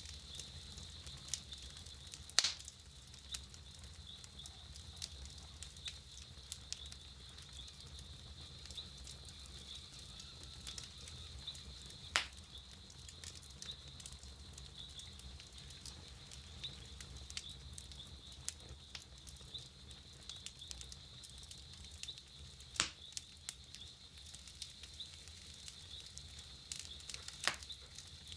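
Wood campfire crackling: a stream of small sharp ticks, with four louder pops spread several seconds apart, over a steady low rumble.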